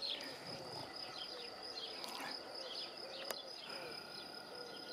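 Outdoor ambience: birds chirping in short calls over a steady high-pitched insect drone, with a single sharp click about three seconds in.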